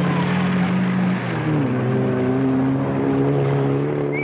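Racing cars' engines running hard on a grass track; one engine note drops in pitch about a second and a half in.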